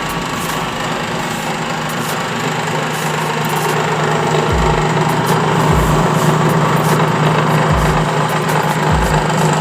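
Small engine running steadily with a constant hum, growing slightly louder in the second half, with a few short low thumps.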